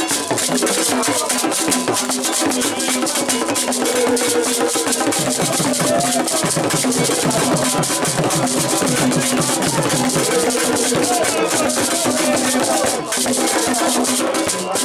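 Ewe Atrikpoe funeral music: a group of men singing together over a dense, continuous shaking of rattles and percussion.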